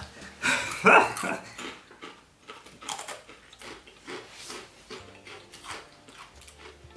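Takis rolled tortilla chips being bitten and chewed: a loud crunch about a second in, then a run of smaller irregular crunches. Soft background music comes in near the end.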